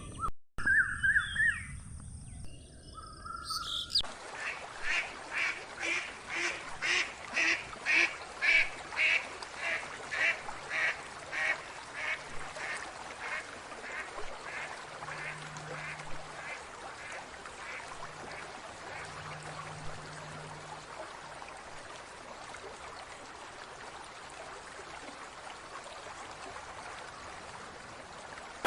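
Short bird chirps for the first few seconds, then a duck quacking in a long, evenly paced series of about two quacks a second. The quacks grow louder at first, then fade away over several seconds.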